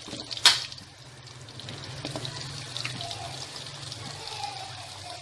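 Chunks of sweet potato and taro frying in shallow oil in a wok, a steady sizzle. A single sharp knock sounds about half a second in.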